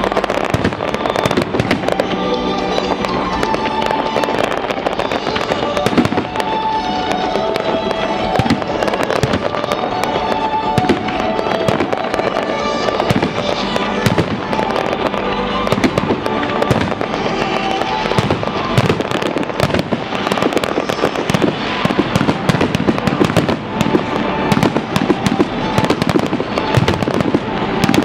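Fireworks display: shells bursting and crackling stars popping, with sharp reports coming thicker in the second half. Music plays underneath throughout.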